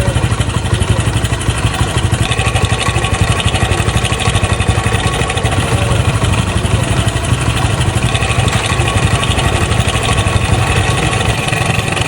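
Motorcycle engine idling steadily with a fast metallic clatter over its low beat, the timing chain noise being diagnosed.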